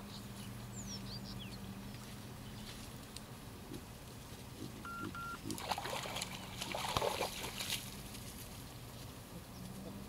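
Water splashing as baboons swim and wade, loudest in a burst about six to eight seconds in, over a steady low hum. A few bird chirps near the start and a short double beep about five seconds in.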